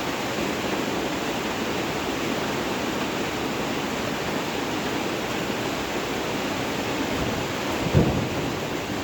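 Steady rain falling, an even hiss, with a short low rumble of thunder breaking in near the end.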